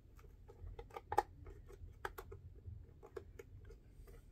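A run of small clicks and taps from a cable plug being worked into its socket on the back of a sewing machine's servo motor power supply, the sharpest clicks about a second and two seconds in.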